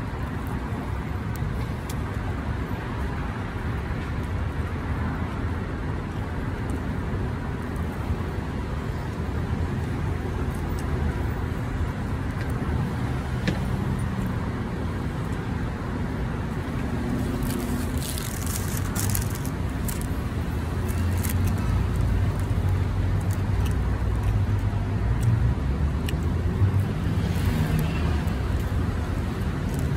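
Steady road traffic rumble, with a vehicle engine growing louder over the last third.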